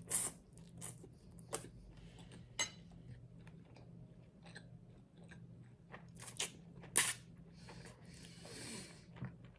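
A person eating close to the microphone: soft chewing with several sharp, crisp crunches and mouth clicks scattered through it.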